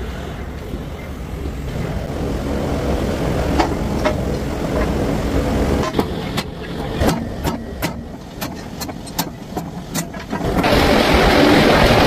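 Factory machinery running with a low rumble. Midway comes a run of about ten sharp knocks, two to three a second, and near the end a louder steady rushing noise takes over.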